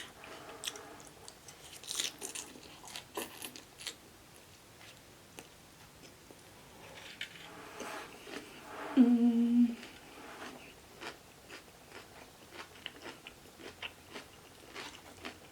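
Close-up chewing and biting of a mouthful of food, with wet mouth clicks and occasional crunches. A short hummed "mm" about nine seconds in.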